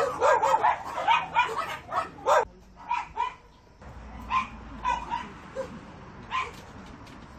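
Several caged dogs barking rapidly, their barks overlapping. About two and a half seconds in this gives way to just a few separate barks and yips.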